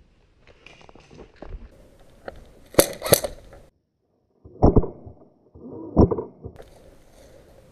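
Two sharp airsoft gun shots about a third of a second apart, then after a short break a few duller knocks and bumps of gear and movement.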